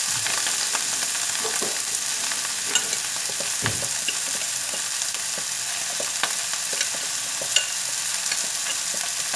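Green beans and meatballs sizzling steadily in a wok over a gas flame, with scattered small pops and crackles.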